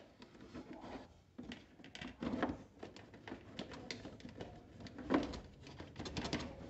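Faint scattered clicks and taps of hands handling the plastic dashboard panel of an electric motorcycle, with a couple of louder knocks about two and five seconds in.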